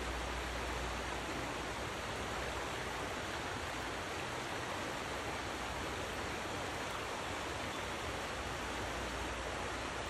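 Fast-flowing river running over rocks and through whitewater: a steady, even rush of water.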